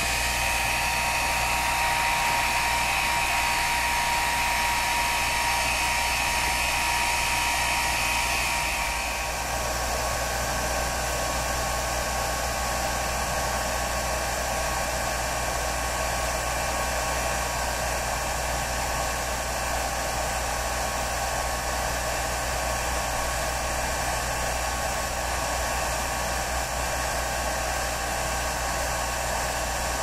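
Hair dryer running steadily. About nine seconds in its tone shifts and it gets slightly quieter, then runs on evenly.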